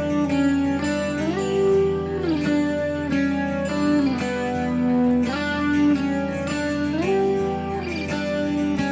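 Background instrumental music: a guitar melody whose notes slide up and down between pitches over steady held chords.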